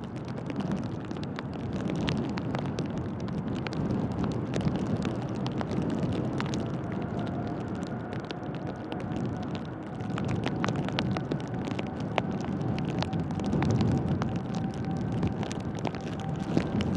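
Jet engines of a Boeing 777-200LR (GE90 turbofans) running at high power during takeoff, a heavy steady rumble that swells twice, with a thin engine whine coming in about seven seconds in. Many small ticks of rain land close to the microphone throughout.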